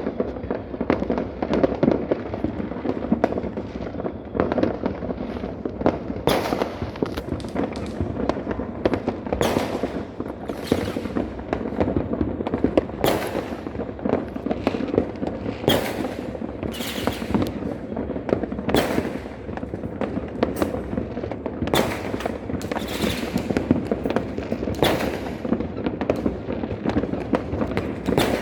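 Fireworks and firecrackers going off without a break: a dense crackle with louder sharp bangs every second or few from about six seconds in.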